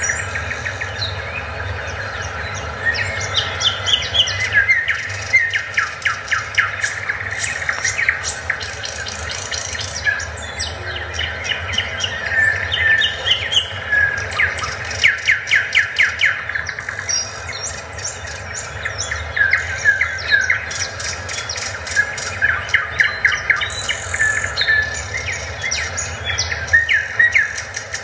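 Many birds chirping and chattering, with quick repeated calls and rattling trills, over a steady low hum.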